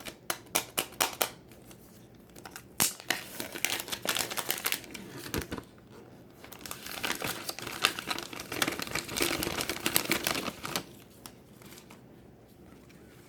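Plastic wrapping on an iPhone 11 box being torn off and crinkled: a few sharp crackles at first, then two long stretches of dense crinkling, fading out near the end.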